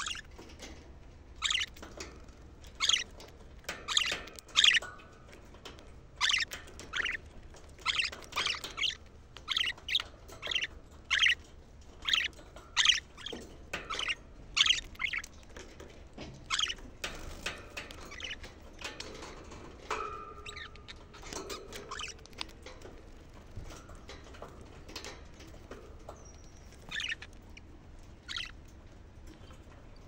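Budgerigars chirping: a quick run of short, sharp chirps for about the first seventeen seconds, then only a few scattered chirps.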